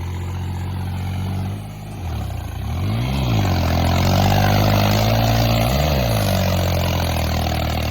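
Tractor diesel engine labouring through deep mud with its belly dragging on the ground. The engine note runs steadily, grows louder a couple of seconds in, and briefly rises and falls in pitch twice as the revs come up and drop back.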